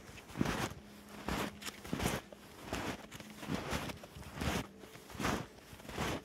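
Snowshoes crunching in deep snow at a steady walking pace, a step about every 0.8 seconds.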